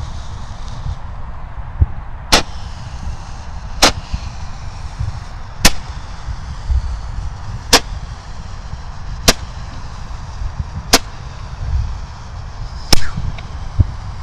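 Roman candle firing its shots, seven sharp pops at a steady pace of about one every one and a half to two seconds, over a low rumble.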